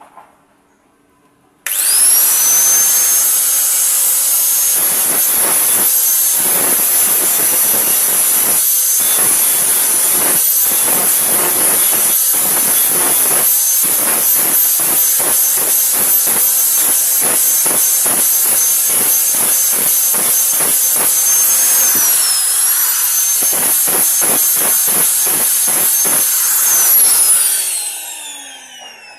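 Electric grinder switched on, its high whine spinning up at once, then grinding metal in repeated passes, the pitch sagging briefly under load. Near the end it is switched off and the whine falls away as the disc or wheel spins down.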